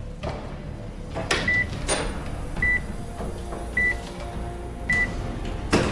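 Hospital patient monitor beeping steadily, a short high beep a little more often than once a second, starting about a second and a half in. A few sharp knocks sound among the beeps.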